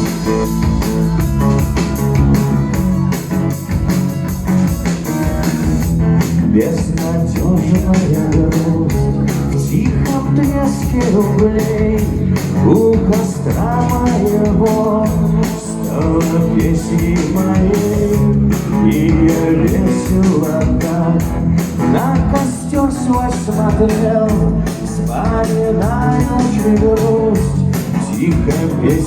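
Live acoustic rock song: strummed acoustic guitar, with a man's singing voice coming in a few seconds in.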